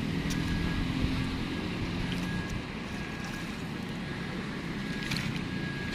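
Low hum of a motor engine that fades about two and a half seconds in, over steady outdoor background noise with a few faint clicks.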